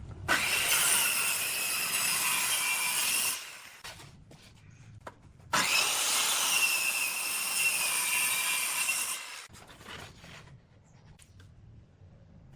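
Handheld electric power tool cutting or abrading wood in two runs of about three seconds each, each starting abruptly with a rising whine and dying away, with a pause of a couple of seconds between.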